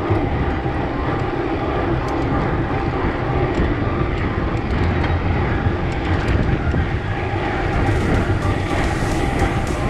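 Wind rumbling on an action camera's microphone while riding a mountain bike, steady and loud throughout, with faint tyre noise underneath. A few faint ticks come in near the end.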